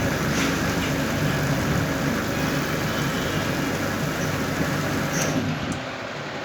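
Coil-winding machine's electric motor running steadily, winding copper wire onto a fan coil, a steady mechanical hum that drops off about five and a half seconds in.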